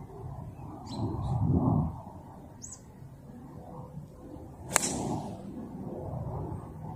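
A 4 wood striking a golf ball off the tee: one sharp crack about five seconds in. Two brief bird chirps come earlier, over a low rumble of wind on the microphone that swells near the start.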